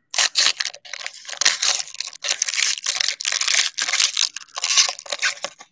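Trading card pack's foil wrapper being crinkled and torn open by hand: a dense run of crackling rustles with short breaks.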